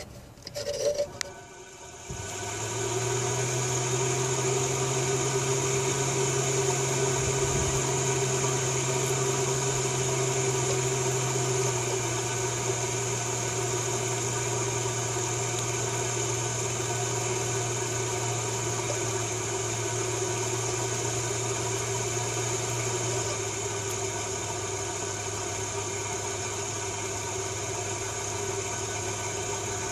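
Electric Champion No. 50 forge blower with a rheostat, switched on about two seconds in and running up to speed, then running steadily with a low hum and a high whine. Its sound drops a little twice, once about halfway through and again near the end.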